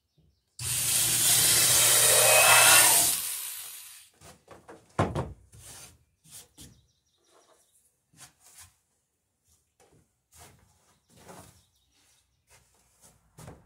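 Corded electric drill boring a rivet hole through the wooden bottom boards of a dory, running for about two and a half seconds and then winding down. Scattered light knocks and clicks follow, one heavier knock among them.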